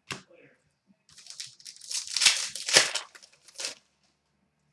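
Crinkling and rustling of packaging while trading cards are handled, in a dense spell of crackly bursts lasting a few seconds.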